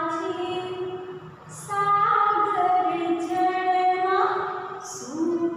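A woman singing a Gujarati children's action song unaccompanied, holding long notes that step from pitch to pitch.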